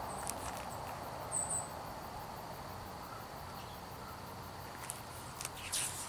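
Quiet outdoor background hiss with a faint steady high tone and one brief high chirp about a second and a half in. Near the end, paper rustling and flapping as a large picture-book page is turned.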